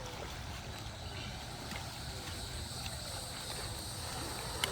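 Steady rush of flowing water, with a low rumble of wind on the microphone. A single sharp click near the end.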